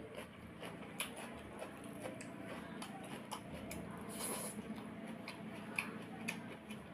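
Fingers squeezing and mixing watery curd rice in a steel bowl: soft wet squishes and many light clicks, over a steady low hum.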